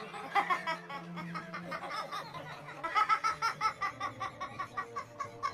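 A person laughing in quick, repeated pitched bursts over background music with a sustained low note.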